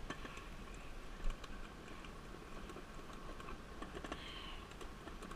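Toboggan sled clattering down a metal toboggan chute: a quick run of small clicks and knocks over a low rumble, with one louder knock about a second in.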